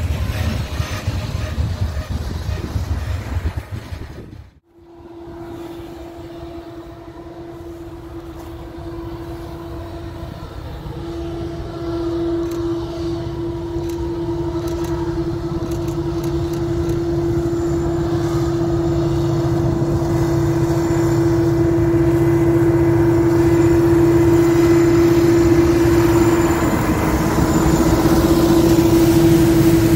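Freight cars rolling past on the rails with a low rumble, cut off about four seconds in. Then diesel-electric freight locomotives crawl closer, their engines giving a steady droning tone and rumble that grows louder as they reach and pass.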